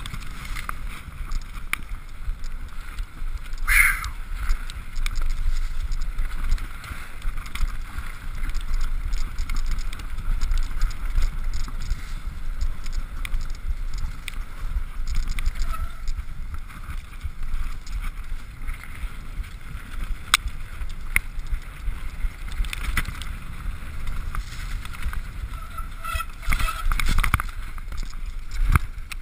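Turner downhill mountain bike ridden fast down a dirt trail, heard from a camera on the rider: wind buffeting the microphone as a steady low rumble, with constant rattling and clicking from the bike and mount over the bumps. A sharper clatter stands out about four seconds in and again near the end.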